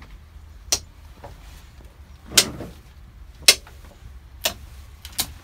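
Toggle switches on an old aircraft's overhead cockpit panel being flicked by hand: about five sharp clicks, roughly a second apart.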